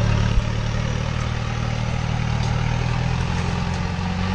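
Pickup truck engine running steadily at low revs as the truck crawls along a rutted dirt trail, with a single low thump about half a second in.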